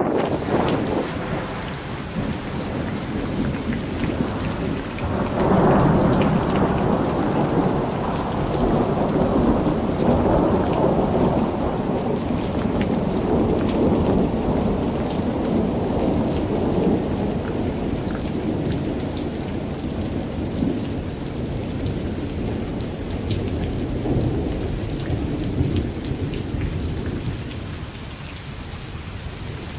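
Thunderstorm: heavy rain pattering steadily under a long, deep rumble of thunder that swells about five seconds in and slowly fades near the end.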